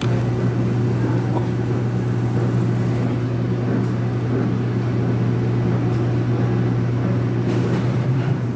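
Steady low mechanical hum: a deep, unchanging drone with fainter tones stacked above it, starting suddenly and holding level throughout.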